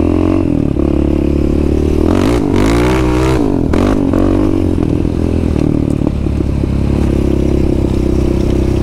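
Yamaha Raptor 700 ATV's single-cylinder four-stroke engine running. About two seconds in it revs up and down a few times with a rush of noise, then settles to a steady low speed near the end.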